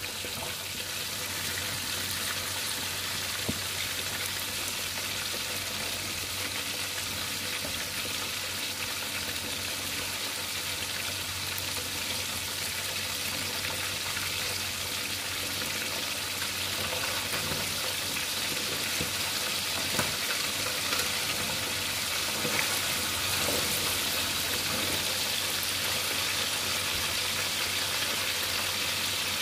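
Whole salt-sprinkled tilapia frying in hot oil in a pan: a steady sizzling hiss, with a few sharper pops in the second half.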